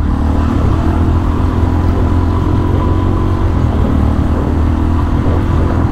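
Suzuki DR-Z400SM single-cylinder four-stroke engine running at a steady cruise while the bike is ridden on the road.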